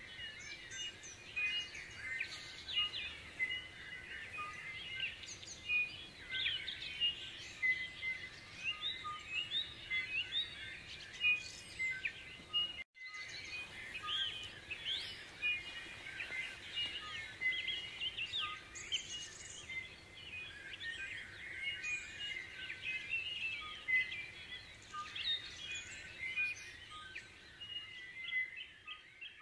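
Dawn chorus: many birds singing at once, a dense tangle of overlapping whistles, chirps and trills, with a brief break about thirteen seconds in.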